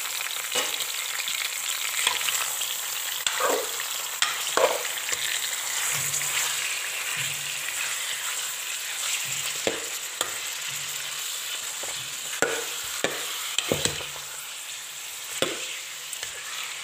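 Raw chicken pieces sizzling in hot oil in a karahi on a high flame. There is a steady hiss with a few sharp knocks scattered through it, typical of a spoon turning the chicken against the pan.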